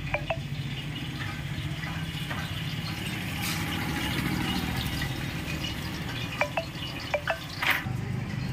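Oil sizzling on a large flat griddle, with sharp metal clinks of spatulas against the pan: a pair just after the start and a cluster of clinks about six to eight seconds in.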